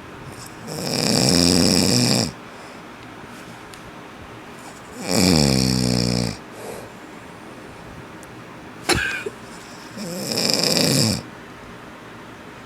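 A man snoring loudly in his sleep: three long snores about four to five seconds apart, the middle one dropping in pitch as it goes. A brief sharp click comes between the second and third snores.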